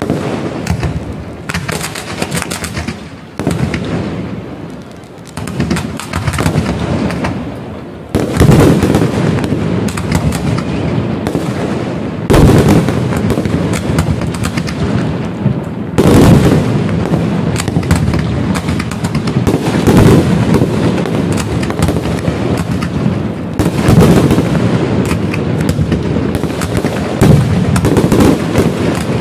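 Aerial fireworks display: a dense, continuous run of shell bursts and crackling, building from about eight seconds in into a heavy barrage of repeated booms.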